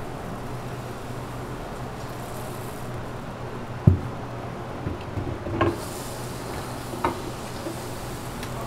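Food preparation behind a waffle counter: a steady equipment hum, one low thump about four seconds in, then a few light clinks and knocks of utensils and containers.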